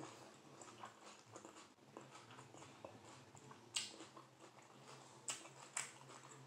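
Faint chewing of a romaine lettuce wrap, with three short crisp crunches in the second half.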